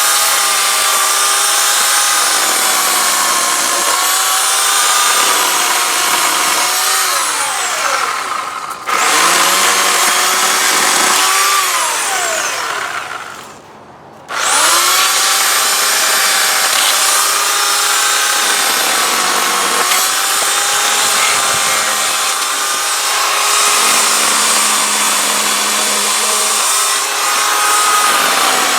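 Electric chainsaw sawing through a pine, its motor whine dipping in pitch under load; now cutting properly with its chain turned the right way round after being mounted backwards. The motor winds down briefly about eight seconds in and again nearly to a stop around thirteen seconds, then starts up again.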